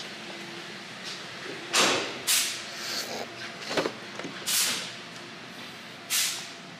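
Several short, loud hisses of compressed air a second or two apart, and the click of a pickup's door latch as the driver door is opened about four seconds in.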